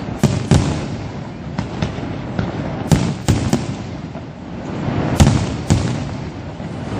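Aerial fireworks shells bursting: about ten sharp bangs at uneven intervals with a low rumble between them. The loudest bang comes about five seconds in.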